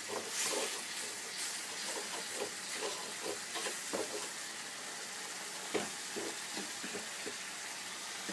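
Ground spice masala sizzling steadily in ghee in a pan, with a spoon stirring and scraping the pan now and then so the masala does not stick to the bottom.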